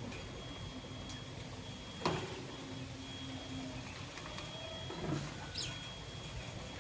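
Lovebird in its cage: two sharp taps, about two and five seconds in, over a faint steady background, and one brief high chirp falling in pitch a little after the second tap.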